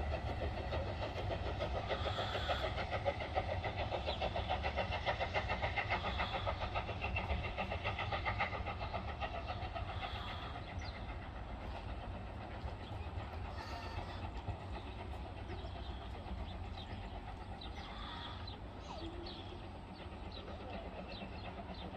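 A train running away into the distance, its rhythmic rumble slowly fading.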